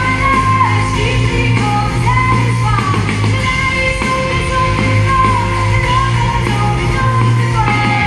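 Woman singing a rock song live, strumming an acoustic guitar with a band including electric guitar behind her.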